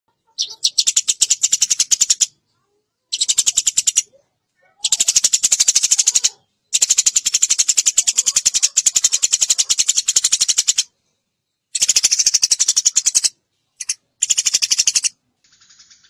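Eurasian tree sparrow chattering: bouts of rapid, high chirps, each from under a second to about four seconds long, with short breaks between them.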